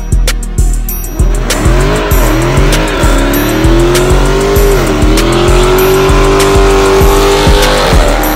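Dodge Charger Scat Pack's 392 Hemi V8 doing a burnout: the engine revs up and down, then holds high for several seconds while the rear tyres spin and squeal. Music with a steady beat plays underneath.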